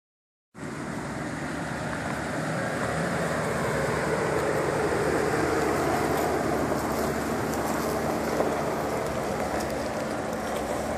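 Jeep Wrangler Rubicon's engine running steadily as it crawls slowly over a rocky trail, growing louder as it draws near, with tyres crackling over leaf litter and rocks.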